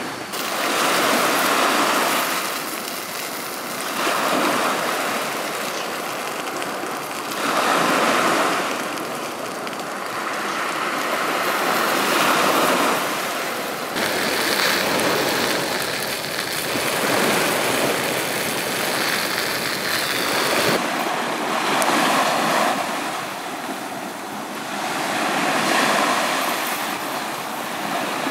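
Small waves breaking and washing up a sandy beach, swelling and fading every few seconds.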